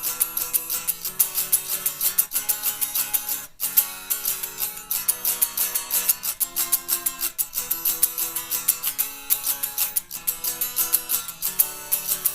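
Guitar strumming chords in a fast, steady rhythm, with a brief break about three and a half seconds in.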